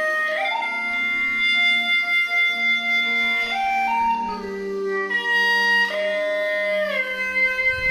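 Background instrumental music: a slow melody of long held notes that step and glide up and down.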